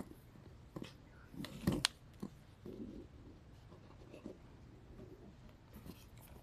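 Faint rustling and handling noises of 1 mm waxed polyester cord being pulled and knotted by hand, with one short sharp click just before two seconds in.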